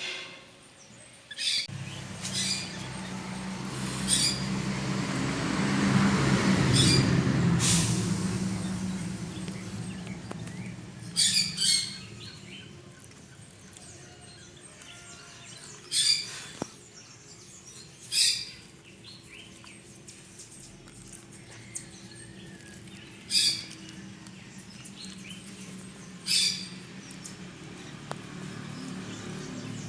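Birds chirping in short, sharp calls every few seconds, over a low hum that swells and fades about six to eight seconds in.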